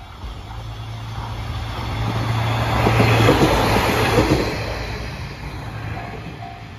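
KiHa 54 diesel railcar passing close by, its engine hum and wheels clacking over the rail joints building to a peak about three to four seconds in and then fading away. A level crossing bell is ringing in even pulses near the end.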